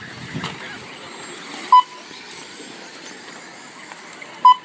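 Two short electronic beeps, about three seconds apart, typical of an RC race lap-timing system as trucks cross the timing line, over the fainter whine of RC stadium trucks running on the track.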